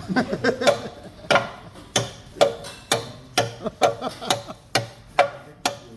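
Repeated sharp metal-on-metal knocks, about two a second and slightly uneven, each with a brief ring: a tool striking a metal part.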